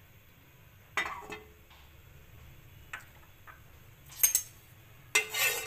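Kitchenware clinking and knocking around a nonstick frying pan on the stove as cooking oil goes in: a clink with a short ring about a second in, a faint tick near three seconds, and a louder double clink just past four seconds, followed by a short noisy clatter near the end.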